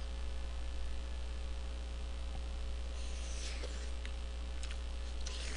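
Steady low mains hum, with a couple of faint soft eating noises from a fork of jjajang noodles about three seconds in and near the end.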